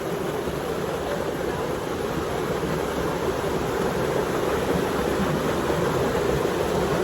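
Steady rush of river water pouring over rocks at a waterfall.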